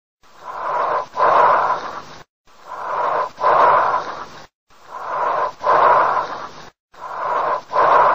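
Recorded breath sounds: four breathing cycles about two seconds apart, each a rushing noise in two phases split by a brief pause, with the second phase louder.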